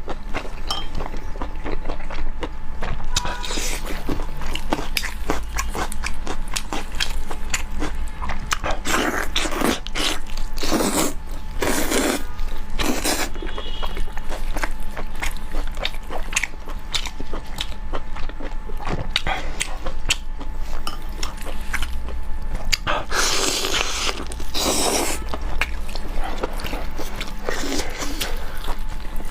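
A person eating spicy pork ribs, chewing and biting meat off the bone, with many quick clicks of mouth and teeth. Longer, louder stretches of noisy eating come around ten seconds in and again near twenty-four seconds.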